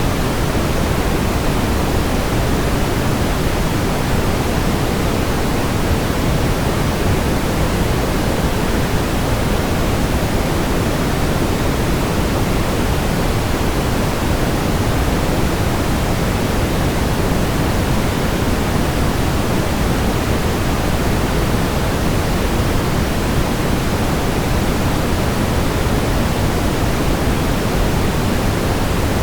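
Steady synthetic brown noise: an even, unbroken rumbling hiss weighted toward the low end, with no changes in level.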